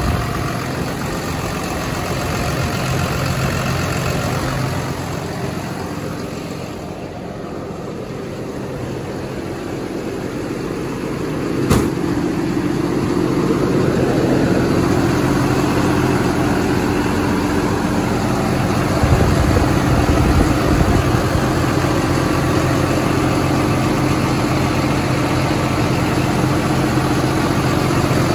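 The 2010 Ford F750's diesel engine idling steadily, up close, louder in the second half. A single sharp knock sounds about midway.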